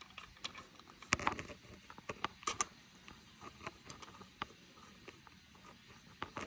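Scattered light clicks and taps of a threadless headset's top cap and bolt being handled and started into the star nut pressed into the fork steerer.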